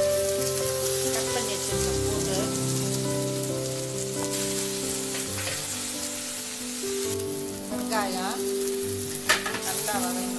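Ginger-garlic paste and whole spices sizzling in hot oil in a kadai, stirred with a wooden spatula, under background music with long held notes. A sharp knock sounds about nine seconds in.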